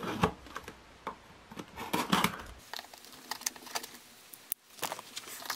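Folding knife slitting the clear packing tape along the seam of a cardboard box: a run of short, scratchy cuts and clicks, then a few scattered clicks near the end.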